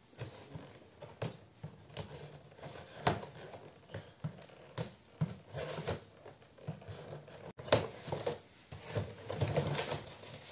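Scissors being used to open a gift box: irregular snips and clicks with the rustle of packaging being cut and handled, the sharpest click a little past halfway.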